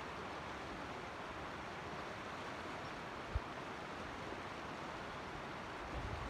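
Steady rush of a mountain creek's flowing water, with one brief low thump about halfway through.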